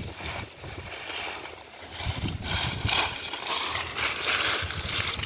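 Muddy water sloshing and splashing as hands grope through shallow water among water hyacinth, getting louder and busier about two seconds in.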